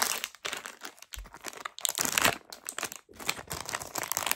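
A shiny plastic blind-bag packet crinkling sharply and irregularly as it is handled and torn open.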